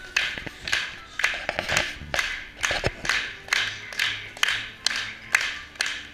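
A crowd clapping in unison to a steady beat, about two claps a second, with music underneath.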